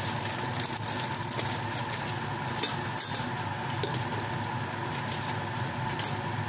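A steady kitchen hum runs throughout, with faint crinkling of a plastic instant-noodle packet and its seasoning sachet being handled, most noticeable a little past two seconds in.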